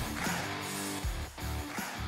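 Intro jingle music with guitar over a steady beat of low thumps.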